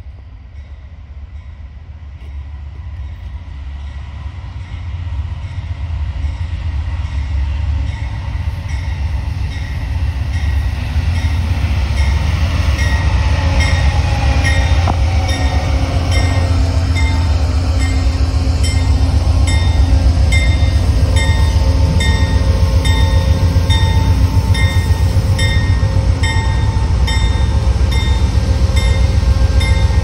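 Amtrak GE P42DC diesel locomotive pulling in: its deep engine rumble grows louder over the first fifteen seconds or so and then holds steady. A bell rings about once a second through the second half.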